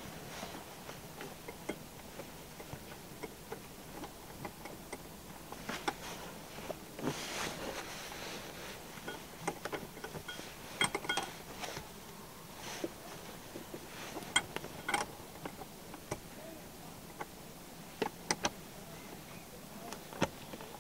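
Scattered small clicks, knocks and rustling of hands and tools working a car's rear seat and seat-belt mechanism back into place and bolting it in, with a longer scraping rustle about seven seconds in and a cluster of clicks near the end.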